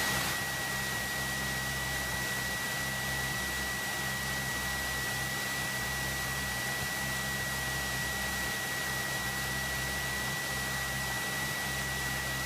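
Cessna 172 cockpit with the engine idling: a steady hiss over a low hum, with a constant thin high tone running through it.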